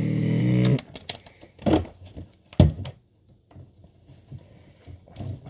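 A person's drawn-out voiced groan, falling in pitch and then held, that cuts off sharply under a second in; then two short knocks about a second apart.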